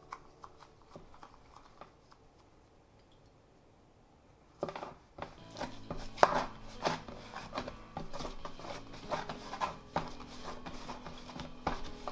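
A few light clicks, then from about halfway a busy run of taps, knocks and scrapes of kitchen tools on a work surface while handling bread dough.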